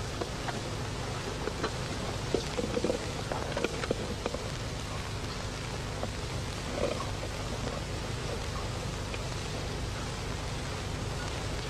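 Fingers tapping and scratching lightly on the skins of a pair of bongo drums, a few scattered soft taps, mostly in the first half, over a steady hiss and hum.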